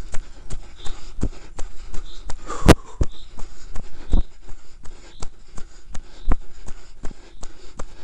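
Jolts and rattle of a camera and its mount carried fast down a bumpy forest dirt trail: irregular knocks and clicks several times a second, with one louder knock a little under three seconds in.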